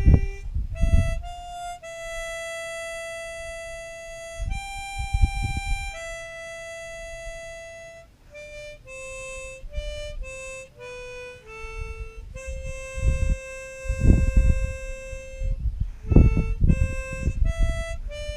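Harmonica playing a slow single-note melody, with long held notes and a run of quicker notes in the middle. Low rumbles come and go beneath it a few times.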